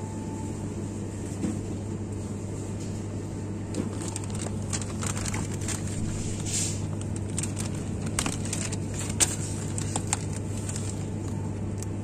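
Supermarket ambience: a steady low hum, with scattered short clicks and rustles, the sharpest about nine seconds in.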